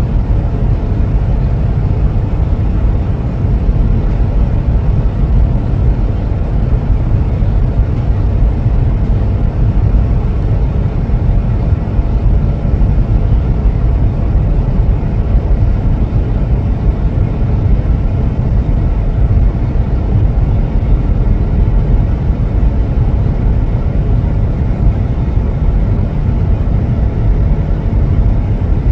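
Steady low rumble of a large oil products tanker under way, passing close by.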